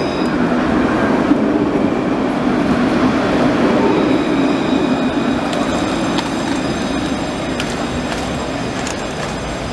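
Alstom Citadis electric tram running past at close range: a steady rumble of wheels on rail that slowly fades as it moves away, with a few faint high tones and light clicks later on.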